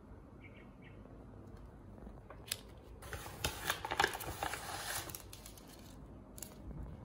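Plastic seasoning sachets from an instant ramen kit crinkling and rustling as they are handled and laid on a table, loudest for about two seconds in the middle, with a sharp tap just before.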